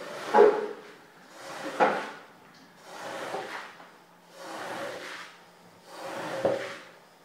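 A long-handled tool pushed across a soaking-wet rug in rhythmic strokes, about one every second and a half, each a wet scrape through the pile as water is worked out of it.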